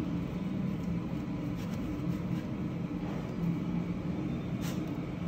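A steady low mechanical hum with a few fixed low pitches, over a constant background rumble.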